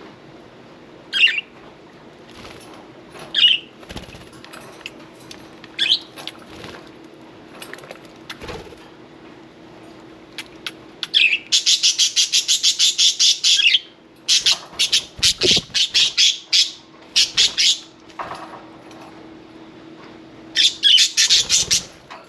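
Pet budgerigars chirping briefly a few times, then bursts of rapid wing flapping about 11 seconds in and again near the end, with a faint steady hum underneath.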